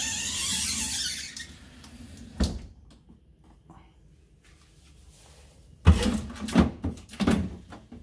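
Bottom freezer drawer of a Hitachi R-WB550PT2 French-door fridge being pulled open, sliding out on its runners for about a second, with a knock at about two and a half seconds. Near the end come several sharp knocks and clatters of the drawer's plastic bins being handled.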